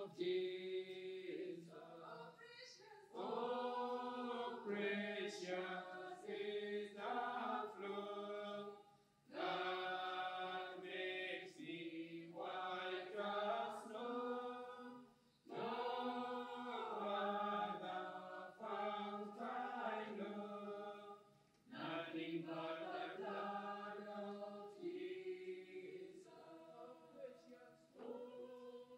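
A small group of voices singing a hymn, in four long phrases with short breaks between them.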